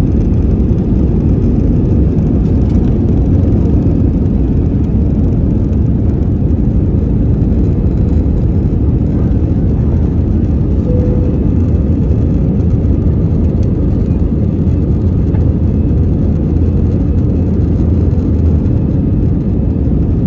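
Airbus A320 cabin noise heard from a seat over the wing during the takeoff run, liftoff and initial climb: the twin jet engines running at high power under a steady, loud, low rush of air.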